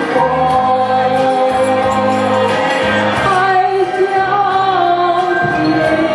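A woman singing a slow Mandarin ballad into a microphone over a karaoke backing track, holding long notes.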